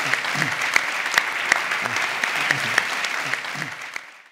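Audience applauding, with sharp, evenly spaced claps standing out above the general clapping about two to three times a second; the applause fades out near the end.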